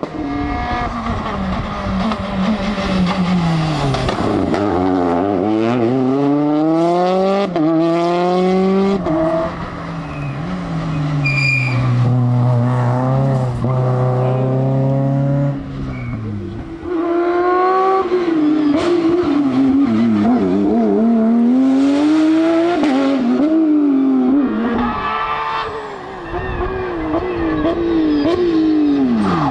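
Rally car engines driven hard past the camera, the pitch climbing under acceleration and dropping sharply at each upshift, falling away when lifting off and rising again, over several passes.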